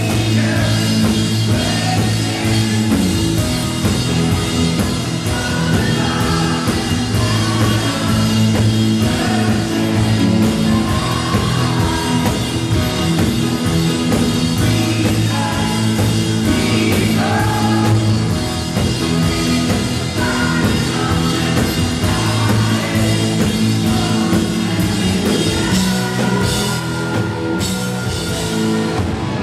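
Live rock band playing, with drum kit and sung vocals over it, loud and continuous.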